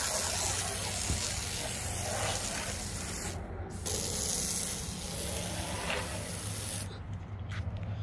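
Water hose spraying: a steady hiss that breaks off for a moment a few seconds in and stops near the end, over a steady low engine hum.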